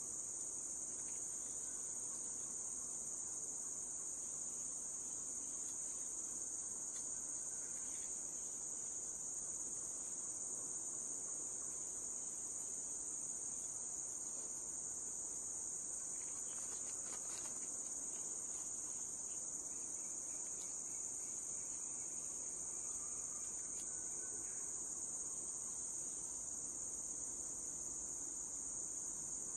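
Steady, shrill insect chorus of the tropical forest: two unbroken high-pitched bands of chirring that hold an even level throughout, with a faint brief rustle a little past halfway.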